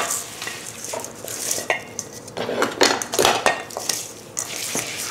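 Tabbouleh of sprouted quinoa and chopped herbs being tossed by hand in a stainless steel bowl: irregular rustling and scraping strokes, with knocks and clinks of the metal bowl.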